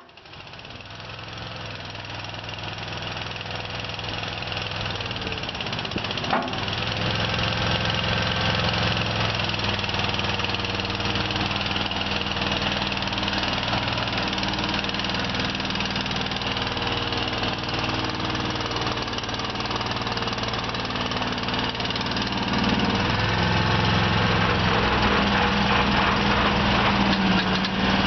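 Honda 24 HP V-twin engine of a Boxer Brute TRX tracked mini skid steer running steadily, growing louder over the first several seconds. A sharp click comes about six seconds in, and the engine grows louder again at about 23 seconds.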